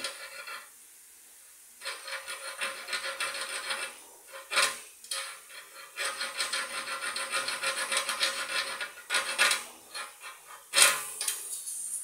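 Small hand-held hacksaw blade cutting through a refrigerator compressor's thick refrigerant pipe, rasping in fast, even pull strokes in two spells of a few seconds each. Near the end a sharp hiss as refrigerant gas still in the line escapes through the cut.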